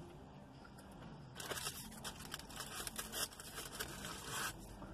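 Food packaging being handled, crinkling and rustling in a dense run of small crackles that starts about a second and a half in and stops about three seconds later.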